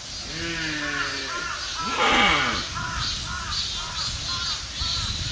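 Deer calling: a long call falling in pitch, then a loud harsh call, then a quick run of short, repeated calls, about two a second.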